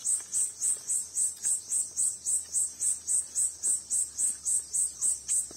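Insect chirping in a steady, even rhythm of about four high-pitched pulses a second.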